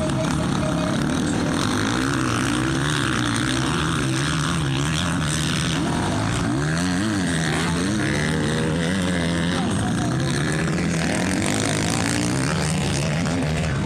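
Several motocross dirt bike engines revving, their pitch rising and falling again and again as the bikes accelerate and back off, with a sharp climb about seven seconds in.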